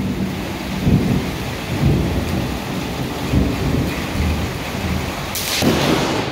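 Heavy rain with thunder rumbling, then about five seconds in a sudden sharp crack of lightning striking very close by.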